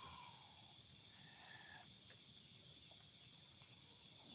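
Near silence: a faint steady hiss and hum of night insects, with a brief faint tone about a second in.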